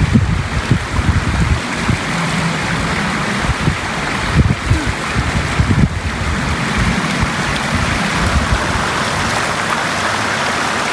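Stream running steadily, with wind gusting on the microphone as an uneven low rumble, mostly in the first half.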